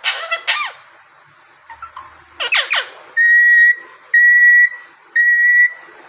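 Alexandrine parakeet giving two short runs of quick falling calls, then whistling three steady notes of about half a second each, evenly spaced.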